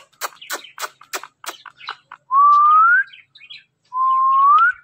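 Indian ringneck parrot whistling twice, each a long steady whistle that rises at the end, after a run of quick clicks at about three a second.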